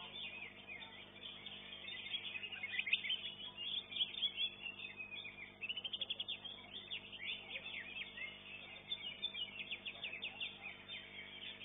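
Green leafbirds (cucak hijau) singing a fast, unbroken run of high chirps and trills.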